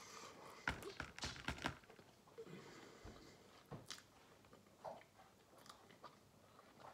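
A person biting into and chewing a piece of calzone, with a quick run of crisp crunches about a second in, then softer, sparser chewing sounds.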